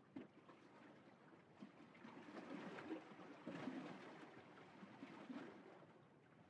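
Near silence, with faint water lapping that swells slightly in the middle.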